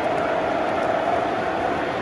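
Model trains running on the layout: a steady rolling rumble of wheels on track with a steady mid-pitched hum.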